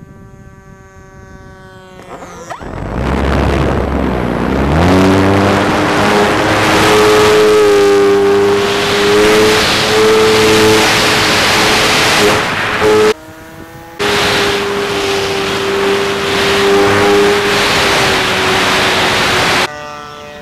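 Electric motor and propeller of an FMS P-51 RC warbird. It whines at low throttle, then throttles up with a rising whine a few seconds in and holds a steady high-pitched whine under heavy wind rush on the onboard camera's microphone. The sound breaks off abruptly twice for about a second.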